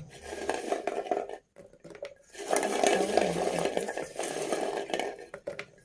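Gulab jamun and sugar syrup being tipped into a plastic bucket: a steady pouring sound with a short break about a second and a half in.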